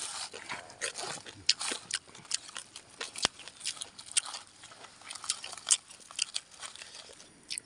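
Charred, crisp leaf wrapping of a fire-roasted packet being picked apart and crumbled by hand: irregular dry crackling and crunching, a few sharp snaps louder than the rest.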